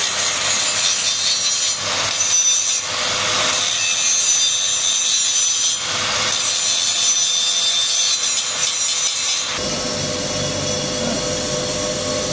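Angle grinder with a thin disc grinding into the wall of a steel pipe to cut a hole: a loud, steady, high rasping grind. About three-quarters of the way through the grinding stops and a lower, steady hum remains.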